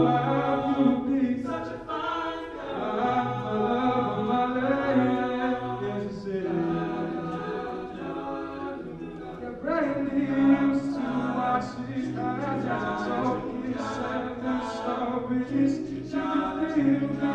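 All-male a cappella group singing sustained, shifting chords, with a vocal percussion beat ticking through it.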